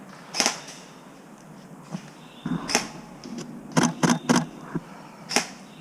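Canon 5D Mark IV DSLR shutter firing a few single frames and one quick burst of three, each a sharp, loud click, with soft rustling of movement between them.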